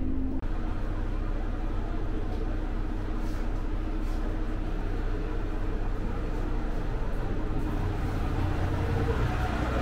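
Steady low hum inside the passenger car of the Umisachi Yamasachi diesel railcar, its engine idling with the train standing at a platform.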